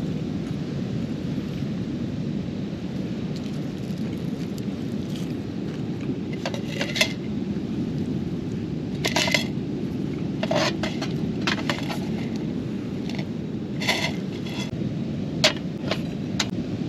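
Metal camp cookware and utensils clinking every second or two, each clink ringing briefly, over a steady low rushing noise.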